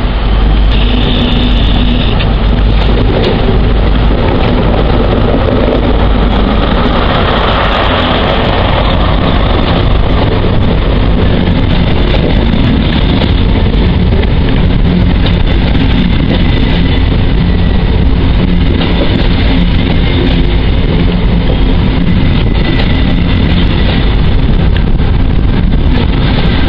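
A First Great Western InterCity 125 High Speed Train running along the platform, loud and continuous. The Class 43 diesel power car's engine comes up and passes, then the coaches roll steadily by on the rails.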